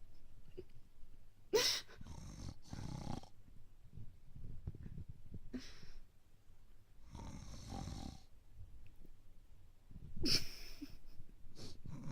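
Snoring sound effect: long, breathy snores drawn in and let out, repeating every few seconds.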